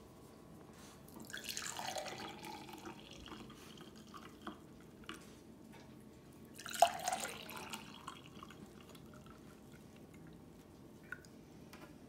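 Carrot-orange juice poured from a plastic juicer jug into glass tumblers, in two pours: one about a second in and a second just past the middle. A short sharp knock comes at the start of the second pour.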